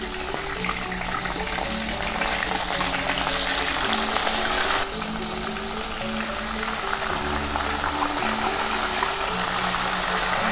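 Lemuru fish in a yellow turmeric marinade sizzling loudly in hot oil in a wok as they are slid in; the sizzle starts suddenly at the outset and flares again near the end as more fish go in. Background music plays underneath.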